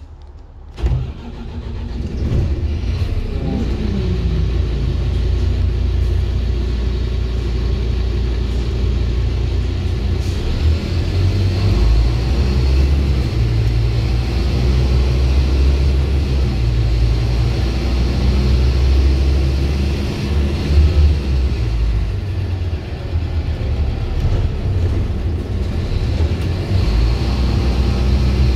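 Scania single-deck bus's diesel engine heard from inside the passenger saloon. It is low for the first second, then comes in loudly and runs under load as the bus drives, with the engine note rising and falling several times.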